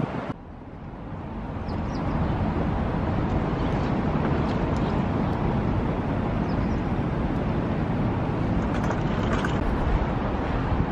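Steady outdoor city ambience: a low rumbling noise that fades in over the first two seconds and then holds level, with a few faint ticks.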